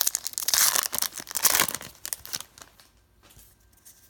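Plastic-foil trading-card pack wrapper being torn open and crinkled in the hands, a dense crackling rustle for about two and a half seconds that then fades to a few faint rustles.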